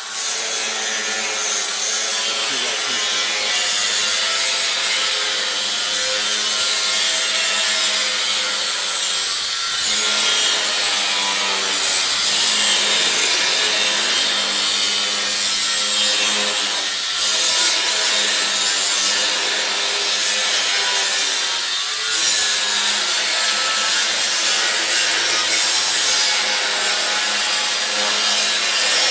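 A power tool working steel: a loud, harsh, steady hiss over a motor hum, easing off briefly about 10, 17 and 22 seconds in.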